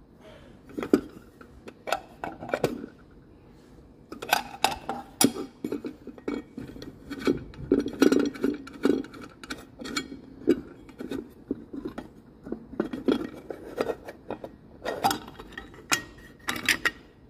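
Irregular metal clinks, clicks and light scrapes as the metal enclosure of a Transtector DC Defender surge protector is handled and its lid opened.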